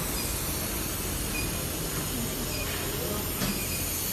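Steady hiss and hum of a running induction forging line, with a single short click about three and a half seconds in.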